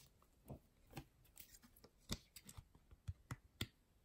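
Faint, scattered clicks and taps, about eight in four seconds, of a trading card, a soft plastic penny sleeve and a rigid plastic top loader being handled.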